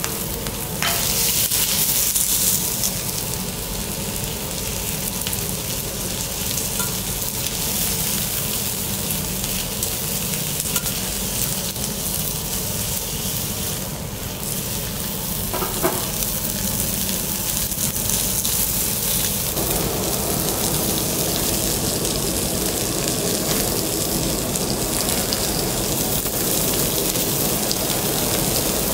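Seafood sizzling on a hot teppanyaki iron griddle, a steady hiss that flares louder about a second in and turns fuller about two-thirds of the way through.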